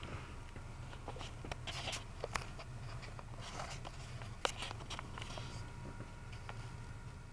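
Scattered clicks and small knocks of a dashcam being handled and repositioned, the loudest about four and a half seconds in, over a steady low hum.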